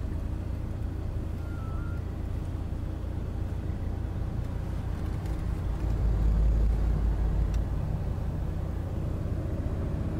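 Car engine and road rumble heard from inside the moving car's cabin. The low rumble swells louder for a second or two a little past the middle.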